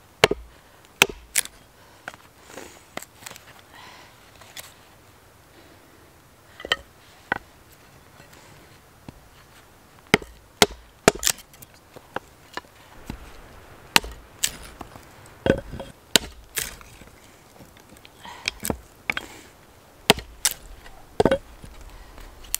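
Husqvarna camp hatchet chopping and splitting small firewood into kindling: sharp, irregular chops of the blade into the wood, some in quick pairs, with a quieter pause partway through.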